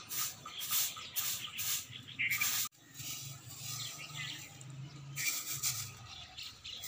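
Short hand broom of dry grass bristles swishing over a concrete roof, sweeping dry neem leaves and dust in brisk repeated strokes, a few per second. The sound cuts out for an instant about two and a half seconds in, then the sweeping goes on more softly.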